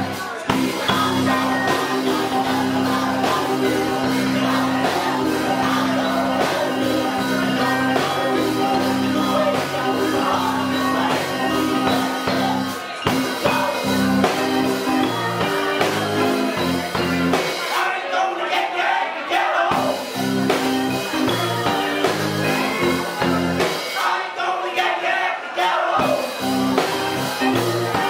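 Live band playing a song with drum kit, keyboard and singing. Twice, for a couple of seconds each, the drums and bass drop out and only the upper parts carry on.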